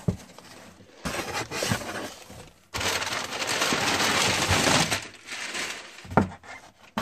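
Cardboard shipping box and its packing being handled and rummaged through: rustling and crunching, loudest and steadiest for about two seconds in the middle, with a short knock near the end.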